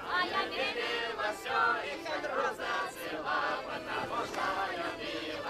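Many people's voices raised together at once, their pitches wavering and overlapping.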